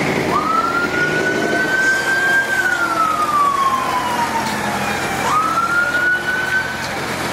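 A siren wailing: its pitch jumps up, holds and creeps higher, then slowly falls, and jumps up again about five seconds in. Car engines and tyres run underneath.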